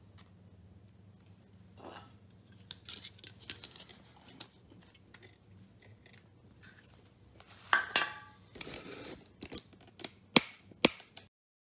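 Hands fitting a metal valve and hose onto a butane canister: small clicks, scrapes and taps, a louder burst of noise lasting about half a second around eight seconds in, and two sharp clicks near the end.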